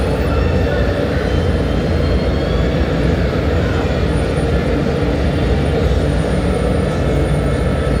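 Industrial annealing furnace firing: a steady, loud rumble.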